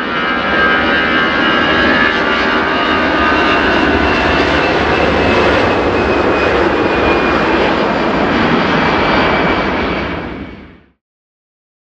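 An Airbus A330's Rolls-Royce Trent 772B turbofans passing on approach: a steady loud jet roar with a high fan whine over it. The sound ends abruptly about a second before the end, leaving silence.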